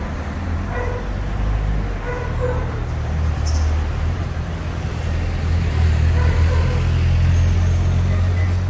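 Street traffic: a steady low motor-vehicle engine rumble that grows louder over the second half, with faint voices of passers-by.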